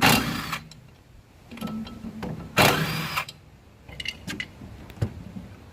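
Impact wrench run in two short bursts, about half a second each and roughly two and a half seconds apart, spinning bolts out of an engine block. A few light clicks of tools being handled come in between.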